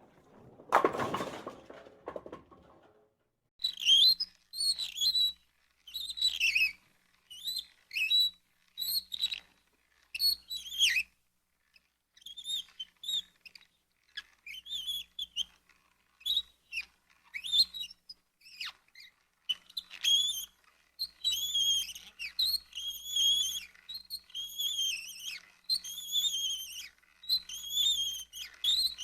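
Squeaking cart wheels: a long run of short, high squeaks that rise and fall in pitch, with a faint low rumble under each one, settling into a steady rhythm of about one squeak a second in the last third. A brief noisy burst comes just before, about a second in.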